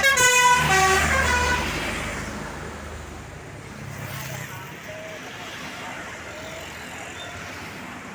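Tour bus 'telolet' musical air horn playing a quick tune of changing notes, ending about a second and a half in. The bus's engine rumble then fades away over the next few seconds, leaving steady street noise.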